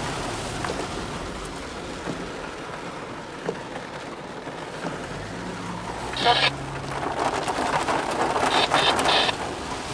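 Heavy hurricane rain drumming on a car's windshield and body, heard from inside the moving car. A brief loud burst comes about six seconds in, and the rain grows heavier for a couple of seconds near the end.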